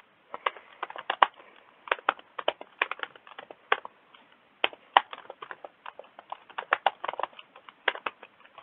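Typing on a computer keyboard: quick, irregular key clicks, with a short pause near the middle.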